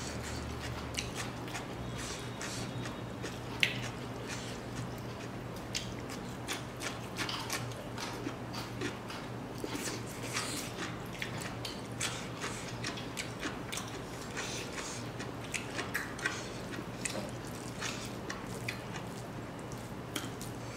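A person eating by hand and chewing close to the microphone: frequent small mouth clicks and crackles, with one sharper click about three and a half seconds in. A steady low hum runs underneath.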